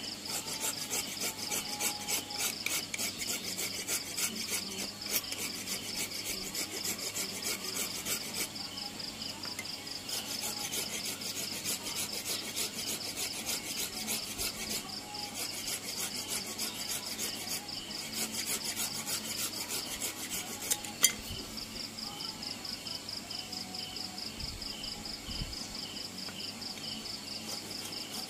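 Hand file or rasp scraping a kenaung-wood keris hilt in runs of rapid strokes, with short pauses between runs. Insects chirp steadily in the background, and there is one sharp tap about 21 seconds in.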